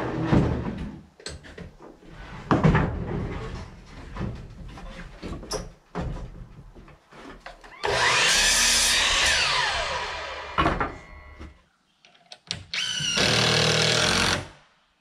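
A DeWalt sliding compound miter saw: boards knock and clunk as they are handled, then about eight seconds in the saw runs through a cut and its whine falls steadily as the blade spins down. A second loud burst of the same kind of noise comes near the end.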